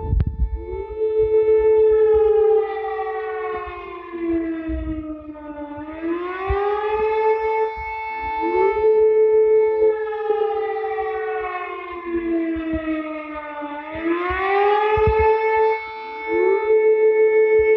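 Civil defence siren sounding a slow wail: its pitch rises over a couple of seconds, then falls slowly for about six, then rises again near the end, with a steady lower tone held beneath it for stretches.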